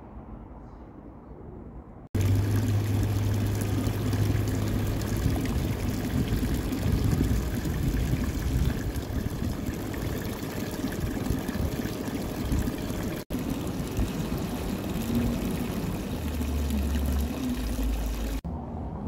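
A stream of water pouring from a fountain's metal spout and splashing into a stone basin, a steady rush that starts suddenly about two seconds in after a quieter low rumble.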